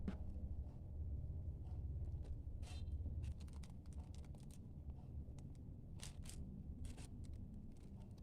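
Scattered light clicks and taps with a few short scrapes of small objects being handled, over a low steady hum.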